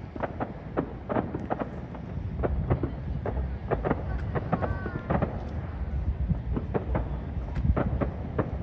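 Distant fireworks popping and banging in quick, irregular succession, with wind rumbling on the microphone.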